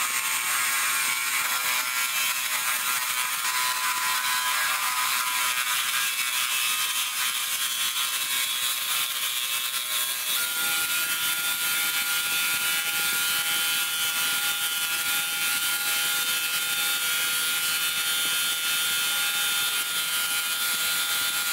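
Cordless drill running a small brazed diamond core bit through the base of a glass bottle: a steady motor whine over a gritty grinding hiss as the bit cuts the glass. The pitch steps once about halfway through.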